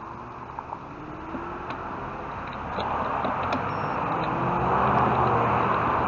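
Road traffic heard from a moving bicycle: the engines and tyres of cars close alongside, with faint rising engine tones as they pull forward. A rushing noise grows clearly louder about three seconds in.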